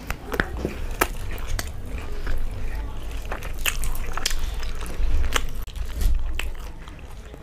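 Close-up eating sounds: crisp deep-fried bhature being torn by hand and chewed, with irregular crisp crackles and crunches, as the bread is dipped into chickpea curry.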